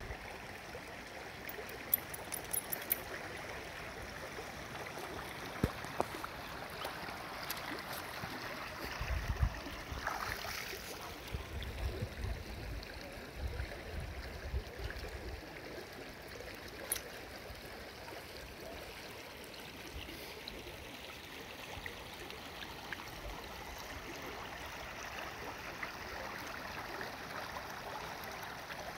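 Shallow river running over stones and riffles, a steady rushing of water, with a few brief sharp knocks and a stretch of low rumbling midway.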